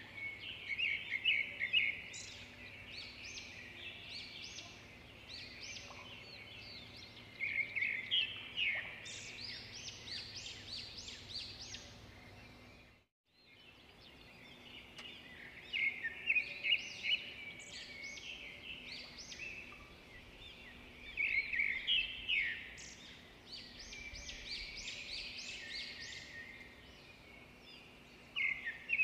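Songbirds chirping and trilling in repeated quick bouts over a faint low hum. The sound cuts out briefly about thirteen seconds in, then resumes.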